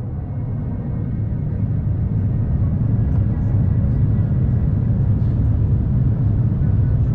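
Airbus A350-900 cabin noise in flight: a steady low rumble of the Rolls-Royce Trent XWB engines and rushing air, with a faint steady whine above it. It grows louder over the first couple of seconds, then holds steady.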